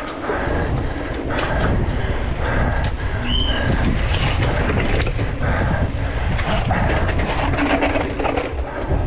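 Mountain bike clattering down a flight of stairs, its frame and chain rattling with a run of uneven knocks as the wheels drop from step to step. Wind rumbles on the helmet-camera microphone, and there is a short squeak about three seconds in.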